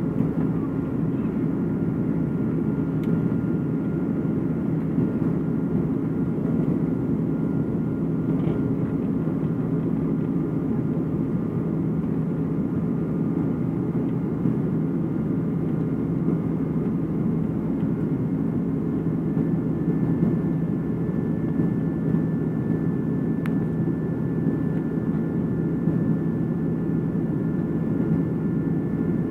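Steady cabin noise of an Airbus A330-300 after takeoff, heard from a window seat over the wing: a constant low drone of the jet engines and airflow, with faint steady whine tones above it.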